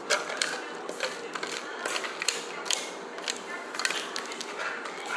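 Close-miked eating sounds: chewing with many irregular sharp clicks, as a fork works and taps in an aluminium foil takeaway container.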